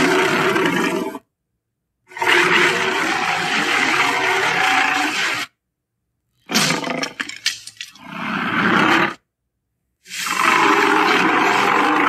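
Cartoon alligator character's roars: four separate roars with silent gaps between them, the second about three seconds long and the third broken up and crackly at its start.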